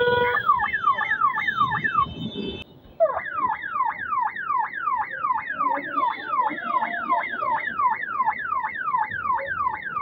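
Aftermarket police-style siren on an electric scooter, sounding a fast yelp of falling pitch sweeps at about three a second. It breaks off briefly about two and a half seconds in, then starts again.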